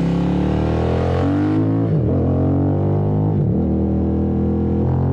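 Triumph Thruxton 1200R's parallel-twin engine running through Arrow headers and Meerkat mufflers, heard from the bike while riding at a fairly steady throttle: a deep, droning exhaust note with brief dips in pitch about every second and a half.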